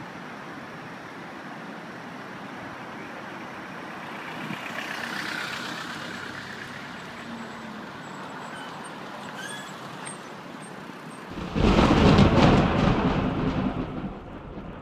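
Steady road traffic noise. A vehicle passes about five seconds in, and near the end a much louder, deep rumbling rush swells up and then fades away.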